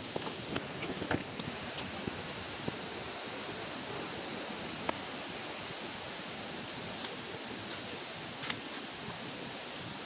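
Steady outdoor hiss with scattered light clicks and rustles of footsteps on rock and brush, most of them in the first second or so, then a few single ones.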